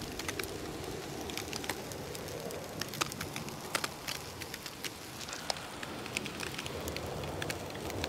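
Charcoal barbecue crackling and sizzling under cod fillets, its fire fanned hot by a strong wind: many small sharp crackles over a steady hiss.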